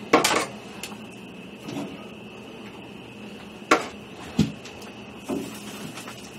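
Scattered knocks and clicks of metal tongs against a barbecue pit's grates and cabinet. The loudest is a short clatter right at the start, with a sharp click a little before four seconds in and a dull thump just after. A faint steady high hum runs underneath.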